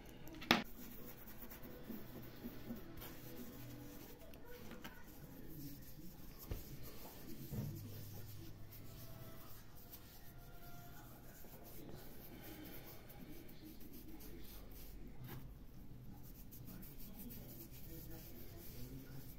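Faint scratching and rubbing of fingers scrubbing a coin with baking soda to polish it after electrolytic cleaning. A sharp click about half a second in.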